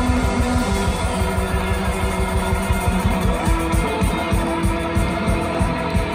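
Live rock band playing through a festival PA, electric guitar to the fore over bass and a steady drum beat, recorded from within the crowd.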